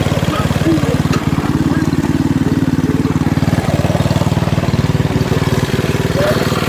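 A mini bike's small single-cylinder engine running steadily, its firing pulses rapid and even with no change in speed.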